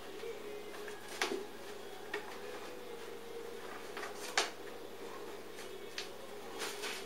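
A cat pawing and scrabbling at a knitted blanket on a hard floor: a handful of short scuffs and sharp taps, the loudest about four and a half seconds in, over a steady faint hum.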